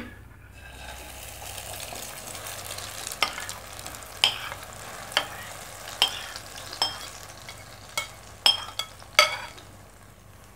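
Grated potato and vegetable mixture sizzling in hot oil in a nonstick kadai as it is tipped in from a plate. About nine sharp clinks of a utensil on the plate and pan sound over the sizzle, which eases near the end.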